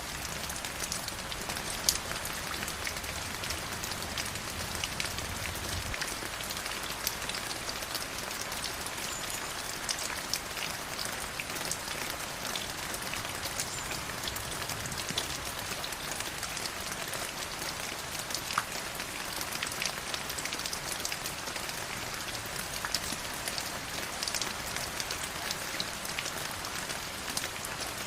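River water flowing: a steady rush of water with many small sharp splashes and drips throughout.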